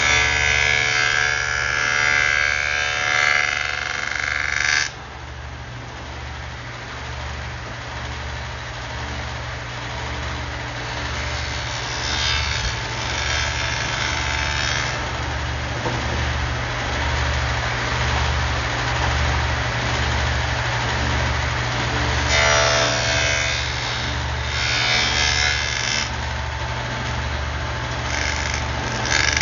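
Table saw cutting a rabbet in a plywood panel: a loud cut in the first five seconds, then the blade running free, with two more cutting passes about twelve and twenty-two seconds in. A low hum with an even pulsing runs underneath, and there are a few sharp clicks near the end.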